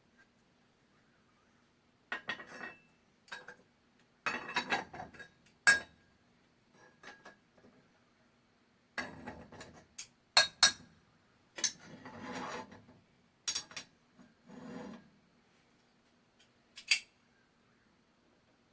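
Hard metal pieces, lead ingots and casting gear, clinking and clattering as they are handled: about a dozen separate knocks and short scrapes, the sharpest ones ringing briefly.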